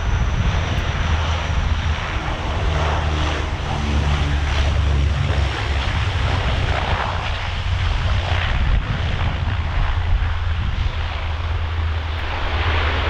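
The Antonov An-12's four Ivchenko AI-20 turboprop engines and propellers running loud during the landing roll on a wet runway: a deep, steady propeller drone over a broad rushing noise, with a set of steady humming tones showing clearly for a few seconds early on.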